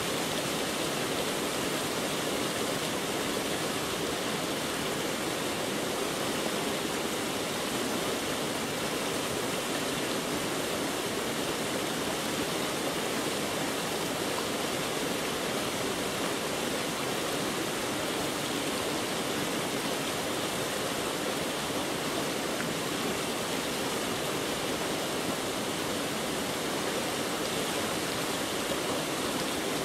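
Steady, unbroken rushing noise, spread evenly from low to high pitches, with no breaks or changes.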